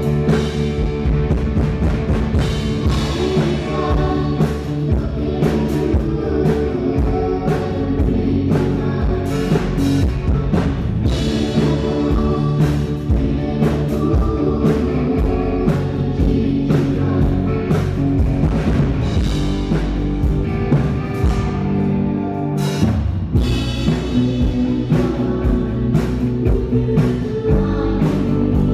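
Rock band playing with drum kit and guitar over a steady beat, with singing at times.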